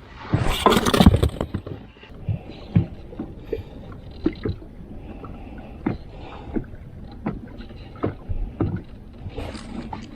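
A loud rustling burst in the first two seconds, then scattered sharp knocks and clunks, about one or two a second, of gear being handled on a fishing boat.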